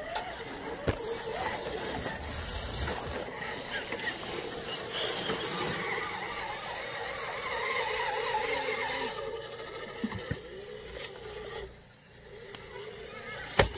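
Electric motors and geared drivetrains of radio-controlled scale crawler trucks whining, the pitch wavering up and down with the throttle as they crawl. A few sharp clicks or knocks, from tyres and chassis on wood and rock, come through, the last near the end.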